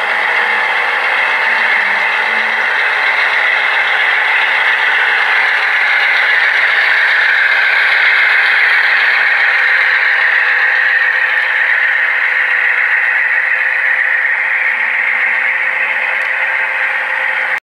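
Model freight train's hopper cars rolling past on the track, a steady rattle of wheels on rail. The sound cuts off suddenly just before the end.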